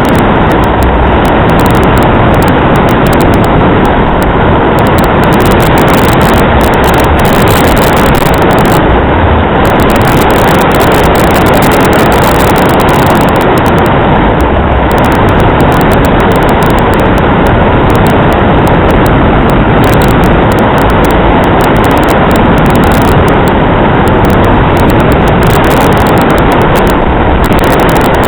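Strong wind blowing across the microphone, a loud, steady rumbling rush with no engine tone.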